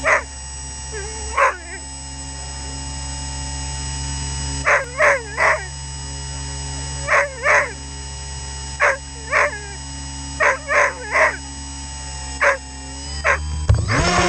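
Labrador barking repeatedly, about fifteen short sharp barks in groups of one to three, over a steady background whine. Near the end the Skyhunter model plane's electric motor spools up loudly as the plane is launched.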